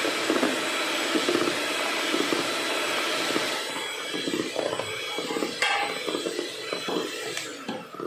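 Electric mixer running steadily, beating cake batter of eggs, sugar and sunflower oil, a high motor whine with a few knocks of the beaters in the bowl; it winds down and stops near the end.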